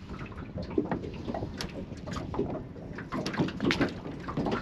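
Irregular splashing and knocks as a fish is scooped out of the water in a landing net beside a boat's hull.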